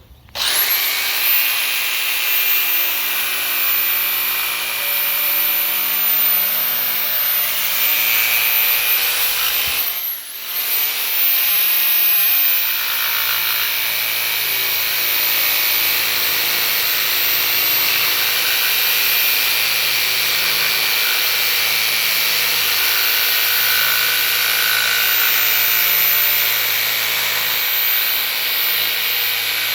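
Electric jigsaw with a scroll blade sawing a bevelled cope into wooden crown molding, running steadily with a high motor whine. The motor starts just after the beginning, slows and drops away for a moment about ten seconds in, then speeds back up and keeps cutting.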